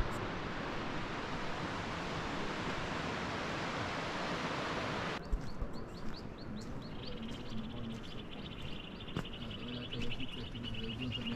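A steady rushing noise that cuts off suddenly about five seconds in, then small birds twittering in a quick run of high chirps, with a few light clicks.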